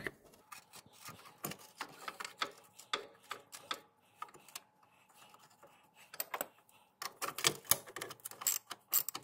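Socket ratchet clicking as the nut on a lawn tractor's steering sector gear is snugged down. Scattered light clicks at first, then a quicker run of clicks from about seven seconds in.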